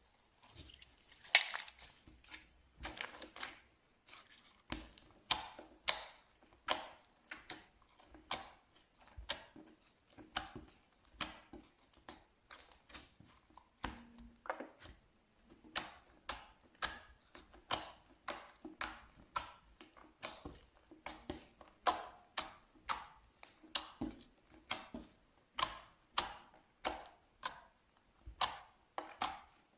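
Slime being pressed and squeezed by hand, giving sharp clicking, crackling pops in an even run of about two a second.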